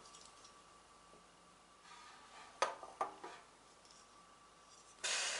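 A few light clicks and taps of small objects being handled, about two and a half to three seconds in, then a short rustle near the end.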